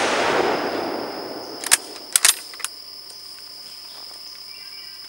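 The echo of a Type 99 Arisaka rifle shot (7.7×58 mm Japanese) rolling away and fading over the first second and a half, then a few sharp metallic clicks of the bolt being worked about two seconds in. Insects buzz steadily throughout.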